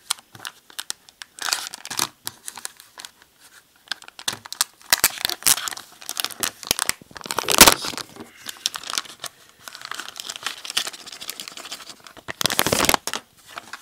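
A packaging packet being torn open and crinkled by hand, with irregular rustling and sharp crackles; the loudest rip comes a little past halfway, with another burst of tearing near the end.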